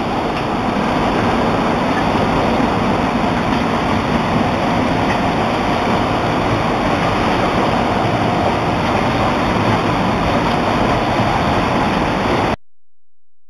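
Carbonated soft drink bottling line running, with its rotary filler and capper making a steady, dense mechanical noise that cuts off suddenly near the end.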